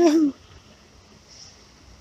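A brief wordless vocal sound from a man, like a short hum, whose pitch rises and falls twice, right at the start. It is followed by faint, low background noise.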